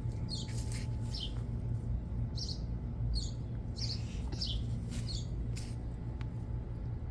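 Small bird chirping repeatedly, short high downward-slurred notes every half second or so that stop near the end, over a low steady hum.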